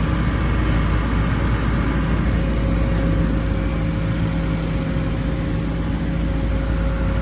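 Engines of heavy road-paving machinery running steadily, with a deep rumble and a constant hum.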